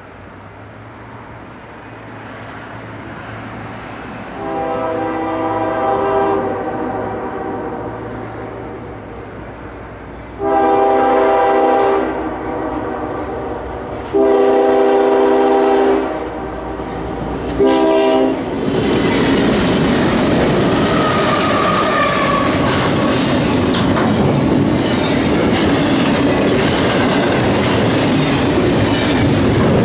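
Diesel freight locomotives approaching and sounding their air horn in four blasts, the first long and the last short, then passing close by, followed by double-stack container cars rolling past with wheels clicking over the rail joints.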